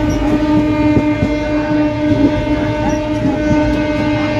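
Train locomotive horn held in one long, steady blast over the running noise of the train, with scattered clicks underneath.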